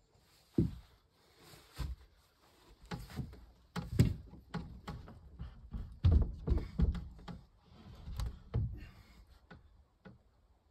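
An irregular run of knocks and thuds, a dozen or so, with a dense cluster of heavier thuds about six seconds in.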